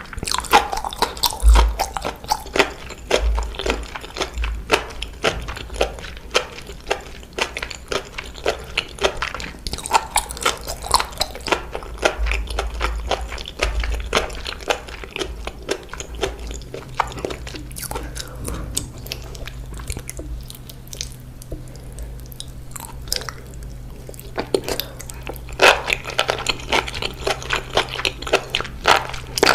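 Close-up chewing and crunching of seaweed, with rapid crisp crackles from each bite. The crunching softens for a few seconds about two-thirds through, then picks up again.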